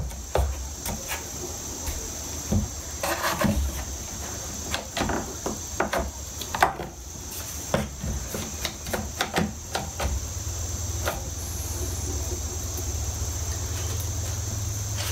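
One-handed bar clamps being fitted and squeezed onto a wooden guitar rim: a run of irregular clicks and light knocks from the ratcheting triggers and clamp jaws on wood, stopping after about ten seconds. A steady high-pitched tone runs underneath, and a low hum rises near the end.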